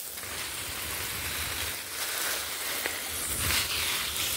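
Garden hose spraying water onto lemon tree leaves and the soil beneath: a steady, rain-like hiss of spray.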